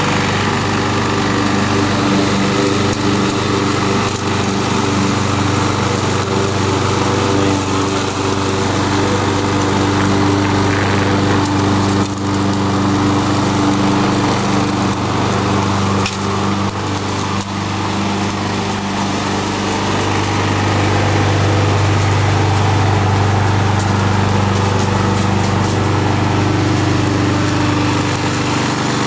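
Gas walk-behind rotary lawn mower's small engine running steadily, its low hum a little louder for several seconds past the middle.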